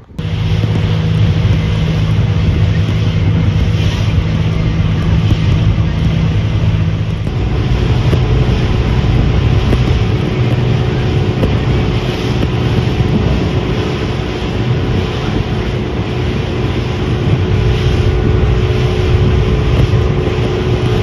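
Small tour boat under way: its engine running steadily with a low hum, and wind buffeting the microphone. The engine note shifts about seven seconds in.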